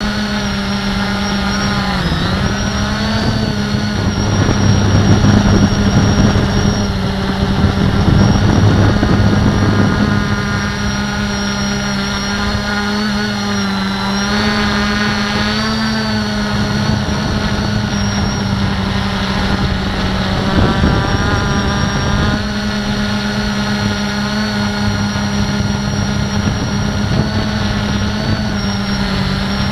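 The four motors and propellers of a Q450 quadcopter in flight, heard from the camera on board: a steady whining hum whose pitch wavers slightly as the throttle changes. A rush of wind noise comes in about four seconds in, is loudest for several seconds, and returns briefly around twenty seconds.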